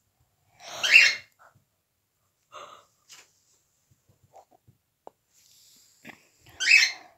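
Paper envelope being torn open by hand: two short, loud rips, about a second in and near the end, with faint paper rustling between them.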